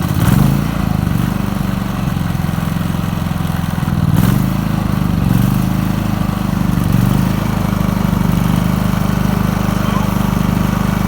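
Pulsar 4000-watt inverter generator running just after its first start, with eco mode off so the engine runs at full speed. The engine note swells and settles a few times in the first seven seconds or so, then holds steady.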